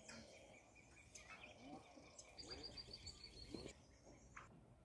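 Faint birdsong over quiet outdoor background noise, with a rapid run of high chirps about two and a half seconds in that lasts just over a second.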